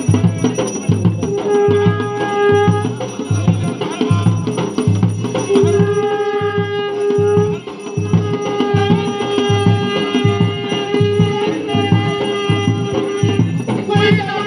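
Garhwali jagar music: a steady low drum beat throughout, under long, level held notes that stop and start again every second or two.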